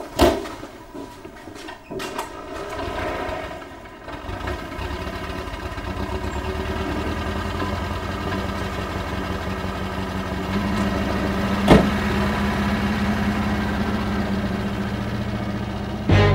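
Vintage sedan's engine starting about four seconds in, then idling steadily with an even low beat. A few knocks come before it starts, and a single sharp click comes near the end.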